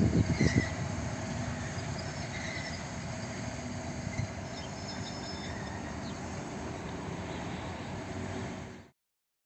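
ST44 diesel locomotive's two-stroke V12 diesel engine rumbling. The sound falls away over the first second to a steady, more distant running and cuts off abruptly near the end.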